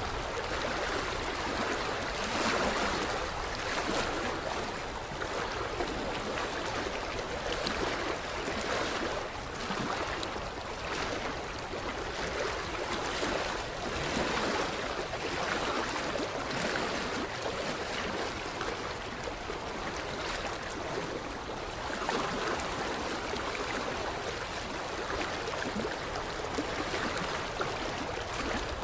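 Small ripples lapping at a creek shoreline, a continuous splashing wash that swells softly every second or two.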